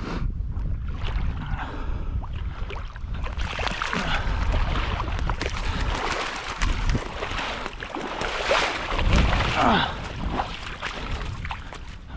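Lake water sloshing and splashing irregularly as someone moves through it to retrieve a downed duck, over a steady low rumble.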